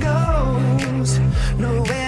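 Upbeat pop music with a steady beat, strong bass and a sliding melodic line.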